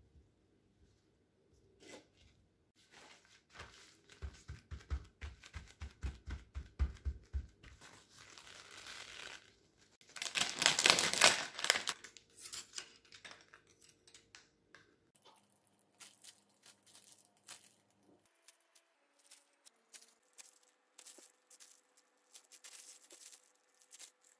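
Paper towel rustled and patted over drained rice-cake sticks in a run of quick strokes. A little before the middle comes a loud stretch of tearing and crinkling of paper or plastic packaging. After that there are only light clicks and rustles as wooden skewers and the rice cakes are handled.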